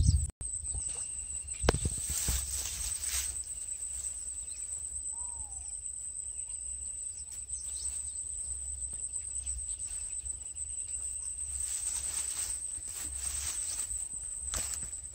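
Insects droning steadily at a high pitch over a low wind rumble, with brief rustles a couple of seconds in and again near the end from dry grass and the nylon landing net being handled.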